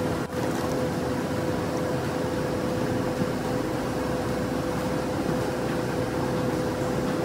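A steady mechanical hum with one constant tone running through it.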